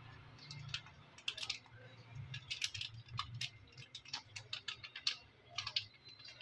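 Light, irregular ticks and clicks, several a second, from a metal saucepan of water heating on a gas stove as seasoning powder is sprinkled in. A low steady hum runs underneath.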